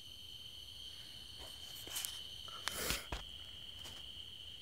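A steady, high-pitched chorus of night insects, one unbroken shrill tone with fainter higher overtones. A few brief soft knocks or rustles come about two and three seconds in.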